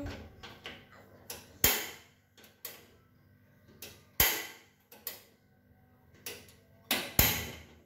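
A series of sharp knocks or clicks on something hard, the three loudest about two and a half seconds apart, each with a short fading tail.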